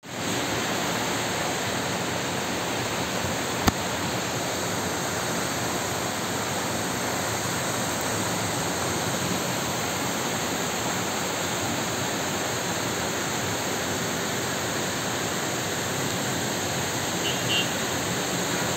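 Steady rushing of muddy floodwater pouring down a street after a cloudburst. A single sharp click comes a little under four seconds in.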